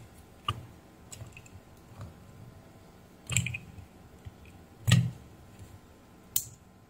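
Handling noises: about six short clicks and knocks, the loudest about three and five seconds in, as a small plastic cooling fan and the inverter's plastic outlet housing are picked up, moved and set down on a bench.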